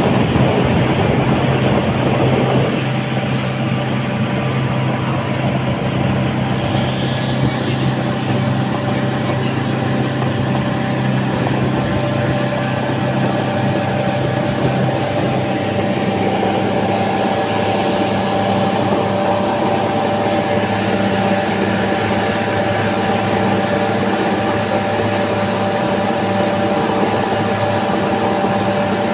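Speedboat engine running steadily under way, with a constant drone and a rush of wind and water against the hull that is strongest in the first couple of seconds. The engine note shifts about halfway through and then holds steady.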